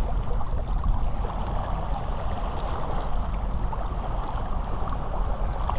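Steady wind rumbling on an action camera's microphone, with small waves lapping at a rocky shoreline.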